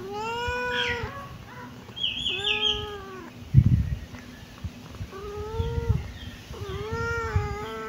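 Kitten meowing: four drawn-out meows, each about a second long, the last two close together near the end. There is a short high chirp around the second meow and a low thump in the middle.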